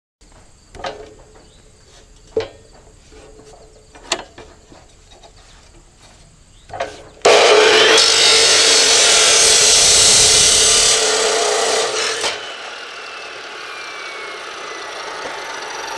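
A few clunks of square steel tubing being set against the fence and clamped in a Hercules 14-inch abrasive cut-off saw; then, about seven seconds in, the abrasive wheel grinds through the steel with a loud screech for about five seconds. After the cut the wheel winds down with a slowly falling whine.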